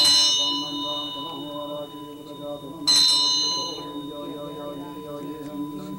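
A Buddhist ritual bell struck twice, about three seconds apart, each strike ringing on with a long fading tone over group chanting of a Zen dharani.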